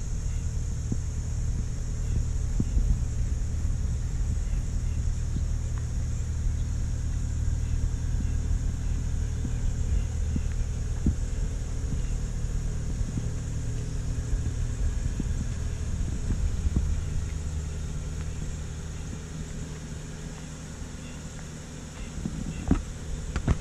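BMW M235i's turbocharged straight-six engine running at low speed, a steady low rumble that eases off over the last few seconds.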